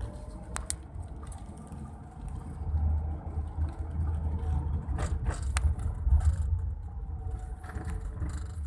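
Car on the move: a steady low engine and road rumble, with a few sharp clicks or rattles, one near the start and a quick cluster a little after five seconds in.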